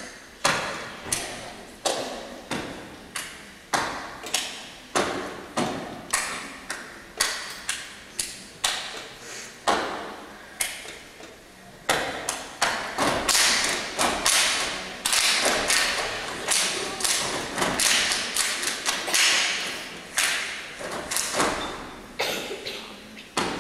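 Stepping: a step team's stomps and claps in unison, sharp hits each ringing on in the hall, about two a second at first, turning into a faster, louder, denser run about halfway through and thinning out again near the end.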